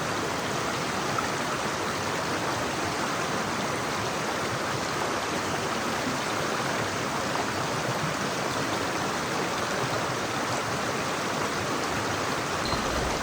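Mountain river flowing over rocks: a steady rush of water.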